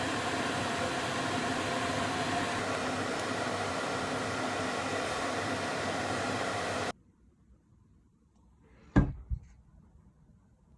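Microwave oven running with a steady hum, then cutting off suddenly about seven seconds in. A sharp double knock follows about two seconds later.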